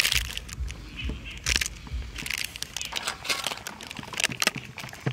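Clear plastic bag crinkling and rustling in short, irregular bursts as cooked rice is squeezed and shaken out of it into a steel bowl.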